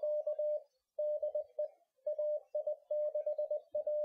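Morse code sent as a single steady tone, keyed on and off in short dots and longer dashes with short gaps between characters.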